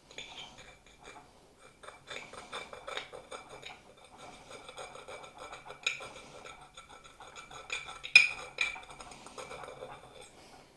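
Glass scorer scratching along the glazed china of a plate, a rough grating made of many short strokes, with sharp clicks about six and eight seconds in.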